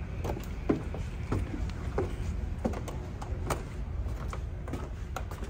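Footsteps on entry steps and a floor, a series of evenly spaced knocks about every two-thirds of a second, over a steady low background hum.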